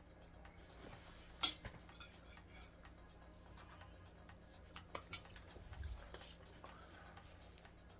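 Tableware clinking a few times: a sharp clink about a second and a half in, the loudest, and a pair of lighter ones around five seconds in, over faint background music.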